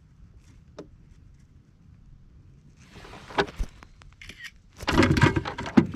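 Knocking and clattering on a kayak: scattered knocks with one sharp thump, then a loud burst of rattling and knocking near the end.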